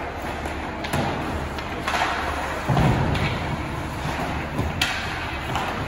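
Ice hockey play in a rink: a handful of scattered knocks and thuds from sticks, puck and boards, the heaviest a dull thud about two-thirds of the way through, over steady rink noise.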